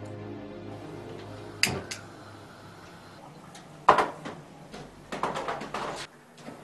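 Kitchen clatter of dishes and utensils being handled on a counter: a couple of sharp clinks, one loud knock about four seconds in, then a quick run of clattering knocks.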